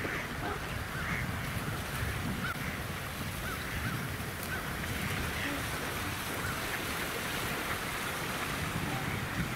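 Geese honking again and again in short calls, over a steady low rumble of wind on the microphone.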